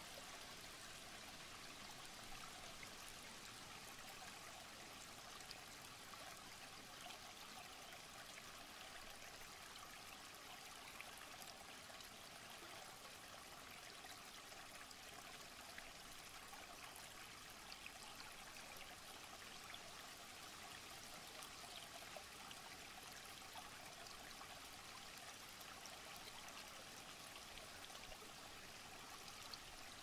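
Shallow rocky stream running over stones: a faint, steady rush of water with small splashes and trickles.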